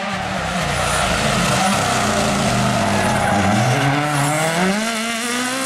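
Rally car on a special stage: the engine note drops as it slows into the corner, then climbs steadily as it accelerates away, over a loud rushing noise as the car passes close.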